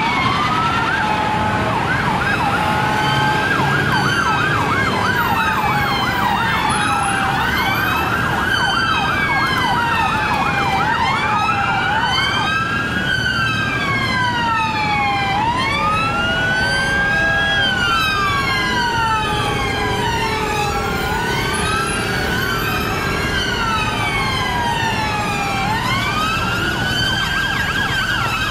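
Several police sirens sound at once, overlapping at different pitches. Slow rising-and-falling wails mix with stretches of fast yelping, which come near the start, about a third of the way in and again later on.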